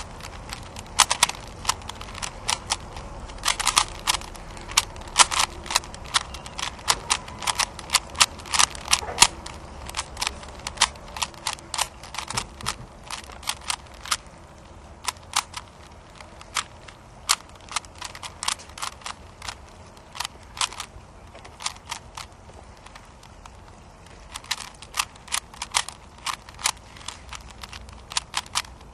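A 3x3 Rubik's cube being turned one-handed: its plastic layers click and clack in quick, irregular runs of turns, thinning out for a while in the middle and picking up again near the end.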